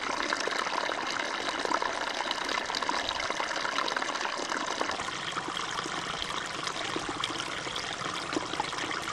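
Water from a small spring trickling steadily over the ground, an even splashing with many small drips and ticks.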